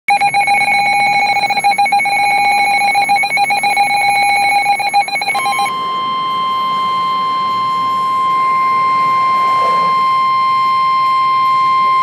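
Midland NOAA weather radio sounding a severe thunderstorm warning alert: a rapid warbling alarm for about five seconds, then a steady 1050 Hz NOAA Weather Radio warning alert tone that cuts off suddenly.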